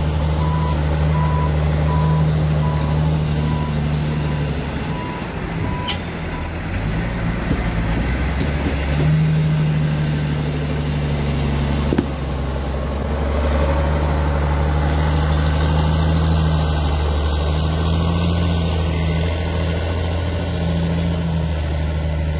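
Heavy tipper dump truck's diesel engine running with a loud, low drone, with a reversing alarm beeping at a regular pace that stops about six seconds in. After that the engine runs on, its note shifting as the trucks move.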